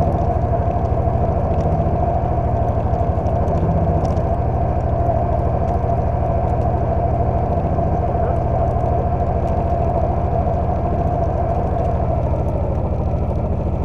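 Engine of a snow-plowing vehicle running steadily at an even speed, with no revving.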